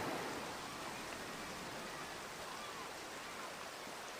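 Faint, steady rush of water from a stream's rapids.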